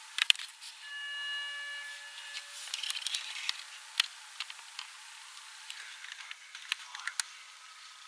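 Scattered sharp knocks of a horse's hooves on the ground as it canters across a cross-country course, the loudest just after the start, right after it clears a wooden rail fence. A steady high tone sounds for about a second and a half near the start.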